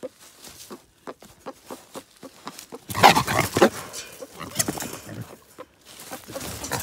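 Trapped wild hogs moving about a corn-baited pen: light scattered clicks at first, then about three seconds in a loud, harsh burst of sound from the hogs lasting under a second, and a shorter one about a second and a half later.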